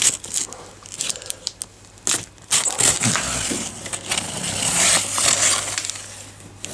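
Packaging being opened and handled: a few sharp crackles and knocks, then a long stretch of dense rustling and crinkling from about two and a half seconds in.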